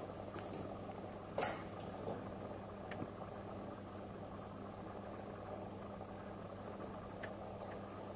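Kittens scrambling on a driftwood cat post and a tiled floor: a few soft knocks and scuffs, the loudest about a second and a half in, over a steady low hum.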